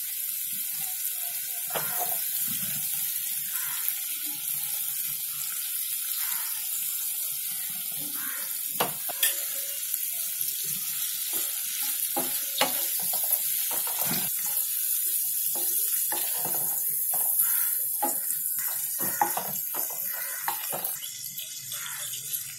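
Shrimp sizzling in ghee in a nonstick frying pan, a steady hiss, with a wooden spatula scraping and knocking against the pan now and then as they are stirred and turned.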